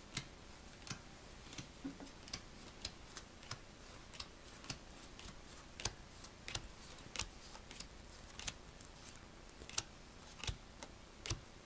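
Playing cards being dealt one at a time from a hand-held deck onto a cloth-covered table: a run of light, irregular clicks and snaps, two or three a second.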